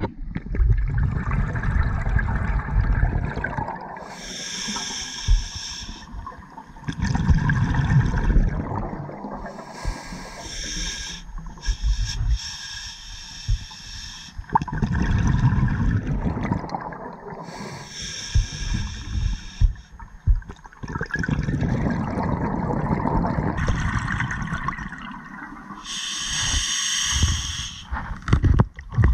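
Scuba diver breathing through a regulator underwater: a hissing inhale, then a longer bubbling exhale, repeating about every seven seconds, four breaths in all.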